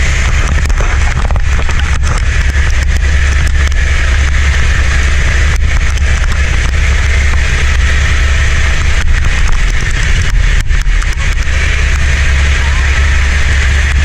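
Helicopter engine and rotor noise heard inside the cabin: a loud, steady low drone with a constant higher hum.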